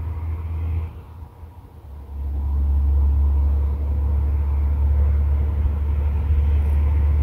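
Low rumble of wind buffeting the phone's microphone. It eases off about a second in and comes back stronger about two seconds in.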